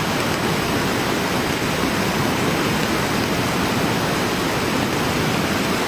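Steady rush of a muddy river in flood, the torrent running strong with no let-up.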